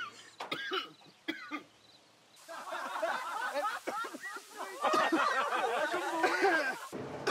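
A man coughing a harsh smoker's cough, with several voices overlapping in the background for most of the time; the voices stop abruptly near the end.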